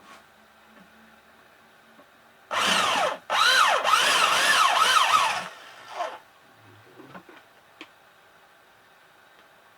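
Electric hand drill boring into the steel rivets of a washing machine motor casing: a short burst about two and a half seconds in, then a longer one of about two seconds, with a whine that rises and falls as the bit cuts. A few faint clicks follow.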